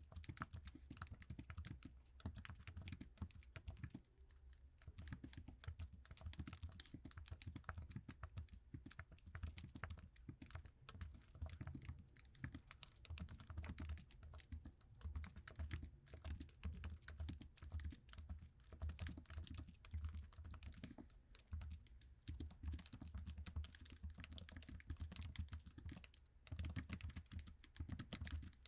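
Continuous typing on a standard Apple iMac keyboard: a dense, fast run of soft key clicks with a few short pauses.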